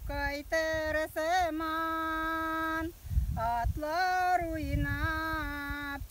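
A woman singing a Tatar folk song solo and unaccompanied, holding long steady notes with short ornamental turns between them and a brief breath about three seconds in. Wind rumbles on the microphone in the second half.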